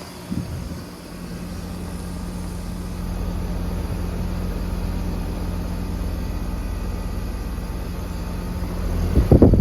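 Outdoor air conditioner or heat pump unit running in cooling mode: a steady hum from the compressor and condenser fan. A short loud low rumble about nine seconds in.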